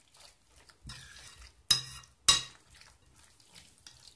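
Walnuts being cracked open: a brief rustling, then two sharp cracks about half a second apart.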